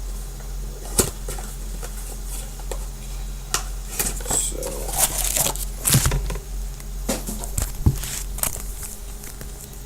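Trading card pack wrappers crinkling and tearing and the cards being handled, with scattered sharp clicks and taps, the loudest about a second in, around six seconds and near eight seconds, over a steady low hum.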